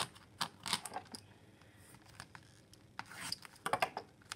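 A folding knife cutting and tearing open the wrap of a sealed trading-card box: short scratchy scrapes and rustles, in one cluster at the start and another about three seconds in.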